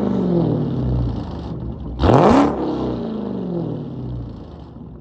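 Dodge Hellcat's supercharged 6.2-litre HEMI V8, exhausting through gutted catalytic converters, being revved while parked: it falls away from one rev at the start, is blipped sharply about two seconds in, and sinks back toward idle.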